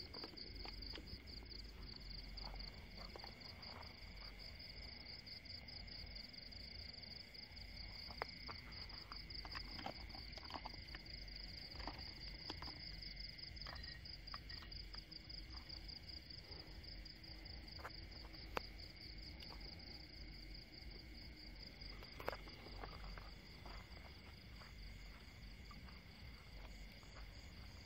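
Night insect chorus with a cricket-like trill: a continuous, finely pulsing high-pitched chirring with a weaker steady lower tone beneath it. Scattered faint clicks and rustles come and go over it.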